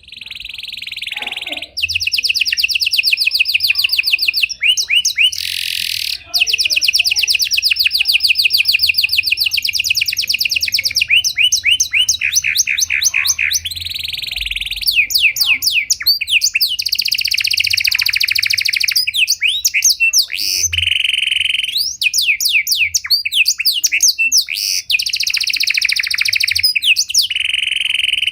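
Pied ('panda') domestic canary singing a long, nearly unbroken song of rapid trills and buzzy rolls, changing phrase every second or two with only brief pauses.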